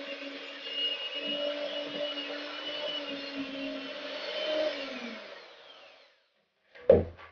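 Electric hand mixer with dough hooks running steadily in stiff pizza dough, a motor hum with a whine. About five seconds in it is switched off and winds down, its pitch falling away. A single sharp thump near the end is the loudest sound.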